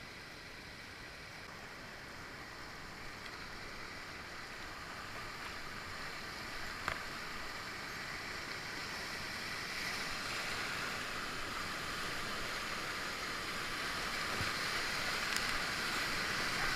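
Rushing whitewater rapids, a steady hiss that grows gradually louder, with one faint click about seven seconds in.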